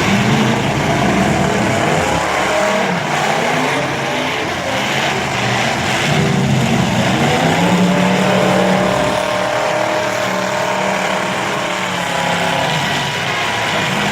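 Several demolition derby cars' engines running and revving at once. Their pitches rise and fall as the cars accelerate and back off.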